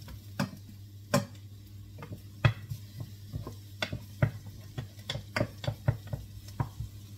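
Wooden spoon stirring garlic in a pot, knocking and scraping against the pot's side and base in irregular taps, about two or three a second, over a faint sizzle of the garlic frying. A steady low hum runs underneath.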